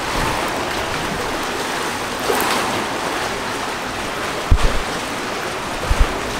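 Steady rush of sea and wind. Two clusters of short, loud, low thumps, about four and a half seconds in and again near the end.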